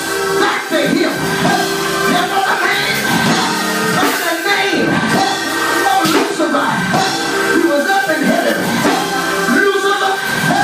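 Live church music heard through a PA: a man sings into a microphone over instrumental backing with long held chords.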